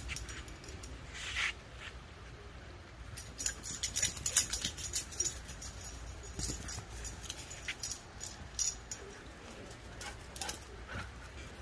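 A husky whimpering faintly, with a dense run of sharp clicks and taps through the middle.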